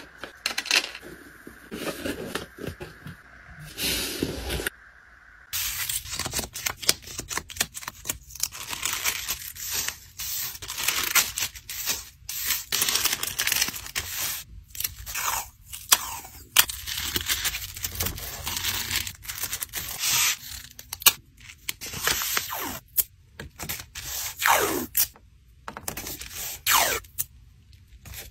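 Close-up handling of paper and tape: rustling, sliding and tearing of paper and washi tape in many short strokes as an item is wrapped and an envelope is taped shut, with a few short falling squeaks near the end.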